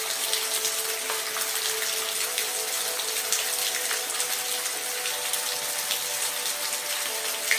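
Steady rain: a dense even hiss with the patter of individual drops, over a faint steady hum.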